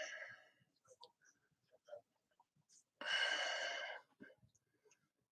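A person's breath on a close headset microphone: a short puff at the start and a longer exhale of about a second around three seconds in, with faint scattered clicks between.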